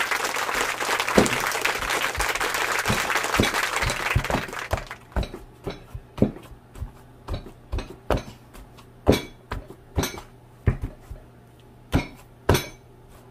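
Wooden masher pounding boiled potatoes in a plastic bowl: irregular knocks, about one or two a second. For the first four seconds or so a steady hiss covers them, then stops.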